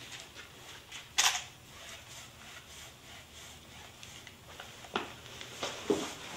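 Wide flat paintbrush stroking and scraping across a painted panel, in short scratchy strokes; the loudest is a brief scratchy stroke about a second in, with a couple of light knocks near the end.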